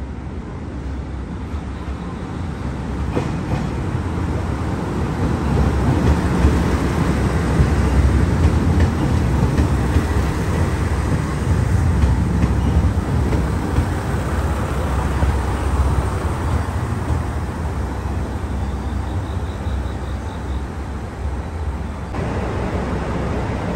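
JR Shikoku diesel limited-express train running in along the platform, a deep engine and wheel rumble that grows louder as it nears, is loudest in the middle, then eases off. About a second before the end the sound changes suddenly to a steadier, quieter rumble.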